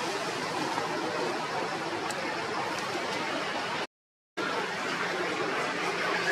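Steady outdoor background noise, an even hiss with no clear calls or tones, cut off to silence for about half a second around four seconds in.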